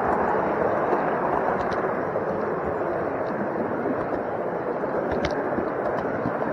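Steady rolling rumble of a model railway wagon's wheels running along the track, heard from a camera riding on the wagon, with a few sharp clicks as the wheels pass over rail joints.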